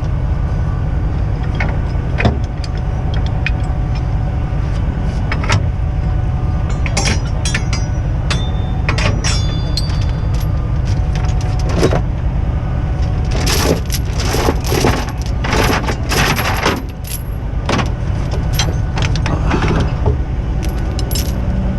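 Heavy truck diesel engine running steadily at a work site, with scattered metal clanks and rattles, and a series of short rushing noises past the middle.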